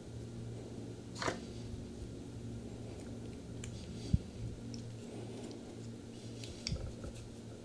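Faint handling of a small washing-machine brake pad in the hands: a brief scrape about a second in, a soft knock about four seconds in and a few light ticks near the end, over a steady low hum.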